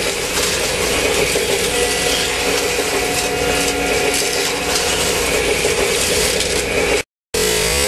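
HO-scale slot cars running on a plastic track: a steady whirring buzz from their small electric motors with a rattle of the cars over the track. The sound cuts out for a moment near the end.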